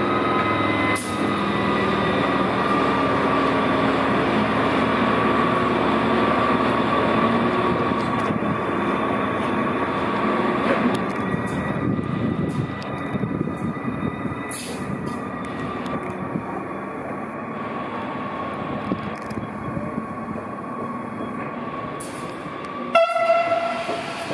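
SNCF CC 6500 electric locomotive moving off and running away along the track, its steady whine slowly falling in pitch over rail rumble. A short, loud horn blast sounds near the end.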